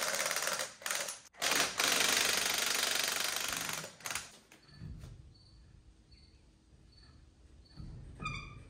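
Impact wrench hammering as it spins lug nuts off a 5-ton military truck's wheel, in two long runs with a short break just over a second in, stopping about four seconds in. Then low thuds as the heavy tyre is rocked off the hub, and a few short high squeaks near the end.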